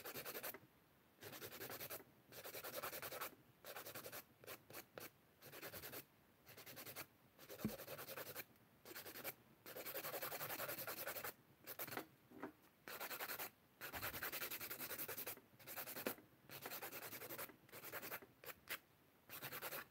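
A half-moon nail file rasping against acrylic nails in short, uneven strokes with brief pauses between them.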